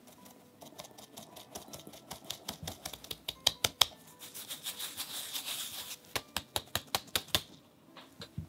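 Quick clicks and taps of kitchen utensils working in a glass mixing bowl, with a soft rustle in the middle and then a regular run of about four taps a second near the end.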